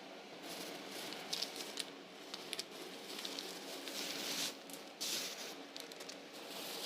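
Faint handling sounds: soft rustling and swishing with scattered light clicks and pats, as of groceries and produce being handled.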